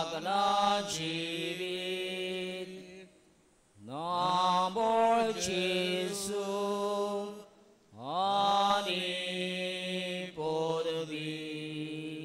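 A single voice slowly singing a repeated devotional chant in three long phrases, each starting with a rising glide and held on a steady note, with short pauses between phrases.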